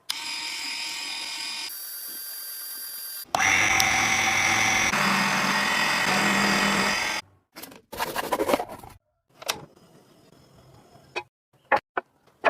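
Small high-speed DC motor, as used to drive a homemade PVC lathe, whining steadily in several short cut-together runs, the loudest in the middle. Near the end come scattered short clicks and knocks.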